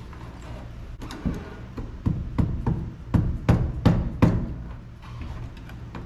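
About ten hammer blows, roughly three a second, that start about a second in and stop near the four-and-a-half-second mark. They are tapping the fuel pump assembly into line in its opening in the top of the truck's fuel tank.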